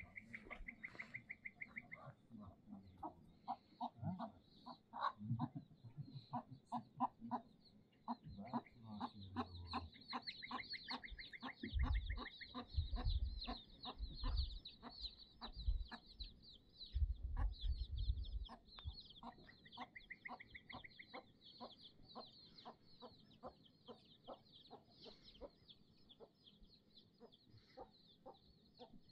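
Domestic chickens clucking, many short clucks one after another, over a steady high chirping and short repeated trills, with a few low rumbles midway.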